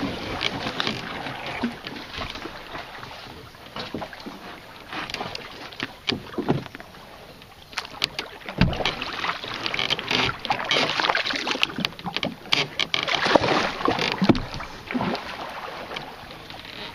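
Canoe paddle strokes in shallow creek water: splashing and dripping from the blade, with scattered sharp clicks and knocks. The strokes are busier and louder in the second half.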